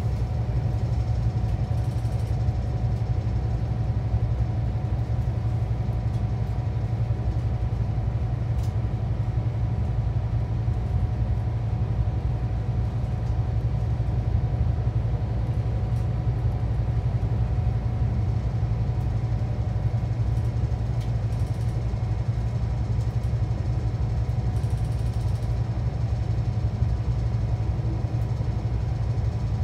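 Scania K360EB4 coach with Irizar i6 body, heard from inside the passenger cabin while cruising at a steady speed: a low, even drone from its five-cylinder diesel engine mixed with tyre and road noise, with no change in revs.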